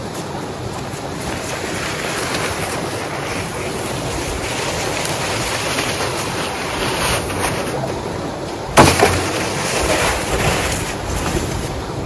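Steady wind rushing on the microphone in driving snow, under which a snow dump scrapes and shoves snow across the pavement. A single sharp thump sounds about nine seconds in.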